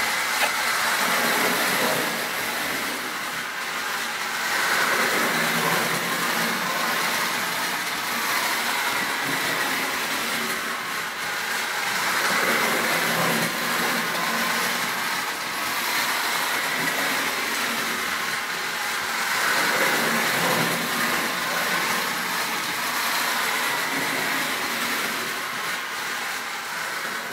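Distler H0 battery-powered toy train running round its track: the small electric motor whirring and the wheels rattling over the rails in a steady run, growing louder and fainter as the train circles.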